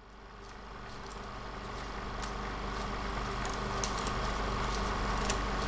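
A steady low hum that fades in over the first two seconds and then holds even, with a few faint clicks.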